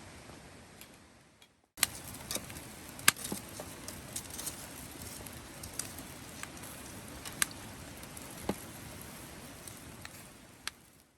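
Wood campfire crackling: irregular sharp pops and snaps over a steady hiss, fading out near the end.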